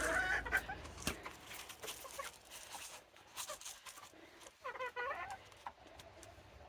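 Serama bantam hen giving a short, strangled-sounding call about five seconds in, amid quiet clucking and a few faint taps.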